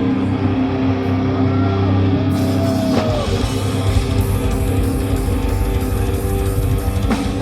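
Heavy metal band playing live: distorted guitars holding low chords under a bending lead-guitar line, with the sound filling out, cymbals included, about two seconds in.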